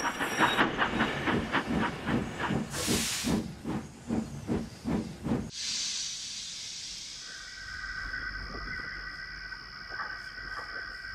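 Steam locomotive sound effect: rhythmic chuffing that slows as the engine draws to a stop, with a short hiss of steam partway through. The chuffing ends about five and a half seconds in with a hiss of released steam, and the engine then stands simmering with a steady high tone.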